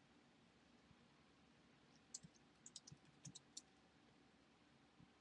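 Faint computer keyboard typing: after about two seconds of quiet, a quick run of about ten key clicks lasting a second and a half.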